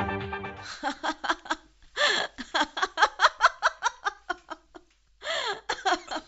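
A woman laughing loudly in long, rapid peals, pausing briefly before a final burst, while background music fades out at the start.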